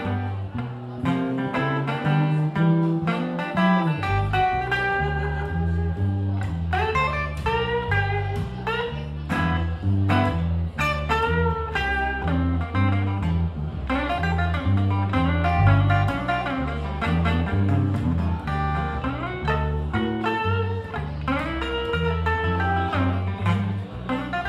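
Instrumental stretch of a Chicago blues played live on acoustic guitar and upright double bass: the guitar picks single-note lead lines with string bends over a walking double bass line.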